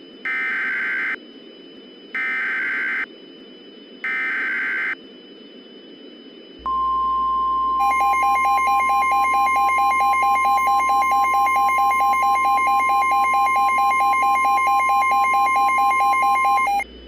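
Three short bursts of screeching digital SAME header data from a NOAA Weather Radio emergency alert, about a second apart. They are followed by the steady 1050 Hz weather-radio warning alarm tone, held for about ten seconds, with a rapid pulsing buzz joining it a second in. This sequence signals that a warning, here a tornado warning, is about to be broadcast.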